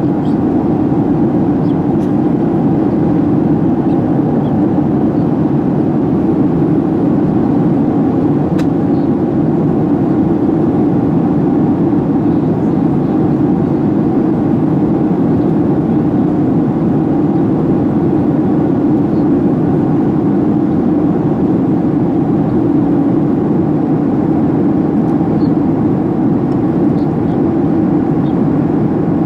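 Steady cabin noise inside a Boeing 737-800 in flight: an even, unchanging rush of airflow and its CFM56 turbofan engines.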